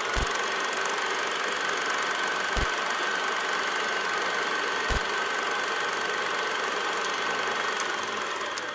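Old film projector sound effect: a steady mechanical whirr with a thin whine, film crackle and a few sharp clicks, and three low thumps about two and a half seconds apart.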